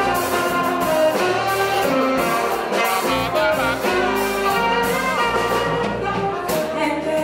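Live jazz band playing an instrumental passage: a saxophone carries the melody over keyboard, bass guitar and drums with cymbals.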